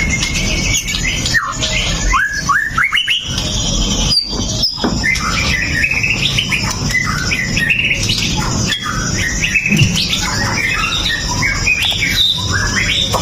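White-rumped shama (murai batu) singing: a continuous, varied song of quick upward-sweeping whistles and choppy chattering phrases, with a steady low background rumble.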